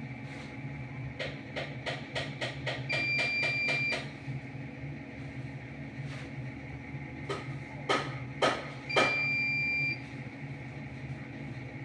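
Electronic device clicking about four times a second for nearly three seconds, ending in a one-second high beep; later three louder clicks followed by another one-second beep, over a steady low hum.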